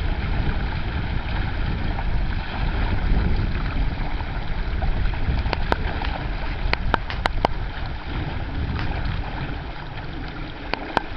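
Water washing and splashing around the bow of a paddled sit-in kayak, under steady wind buffeting the microphone, with a handful of sharp clicks in the middle and one more near the end.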